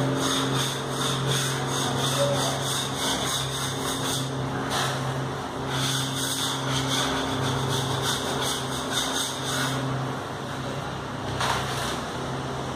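Spatula scraping freshly applied textured wall paint off a wall in many short repeated strokes, stripping away the excess texture coat. A steady low hum runs underneath.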